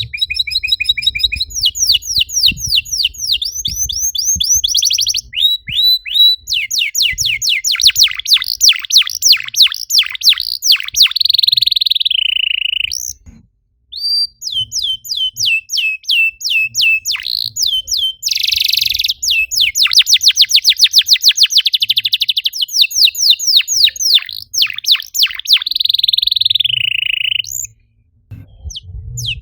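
Domestic canary singing in fast trills of rapidly repeated notes and buzzing rolls, pausing briefly about 13 seconds in and again near the end.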